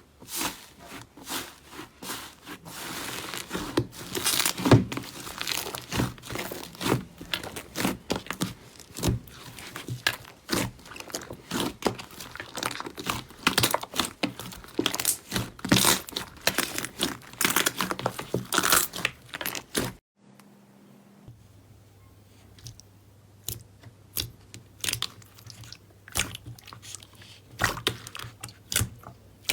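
Slime being pressed and squeezed by hand, giving a dense run of crackling, crunching pops. It cuts off abruptly about two-thirds of the way through, and sparser pops and clicks follow over a faint low hum.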